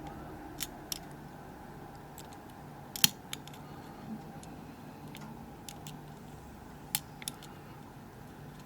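Scattered sharp metal clicks of a lock pick and tension wrench working the pins inside a Kibblock euro cylinder under light tension, about half a dozen irregular clicks, the loudest about three seconds in and again near seven seconds, over a faint steady hum.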